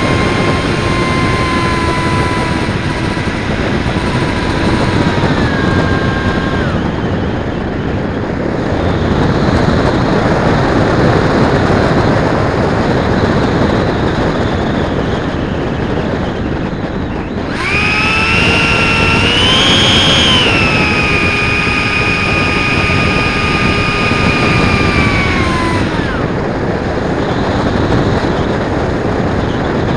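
Model airplane's rear propeller and motor heard from on board, with wind rushing over the camera's microphone. The whine drops in pitch over the first few seconds as the throttle comes back, then rises sharply at about 18 s, holds, and falls away again at about 26 s.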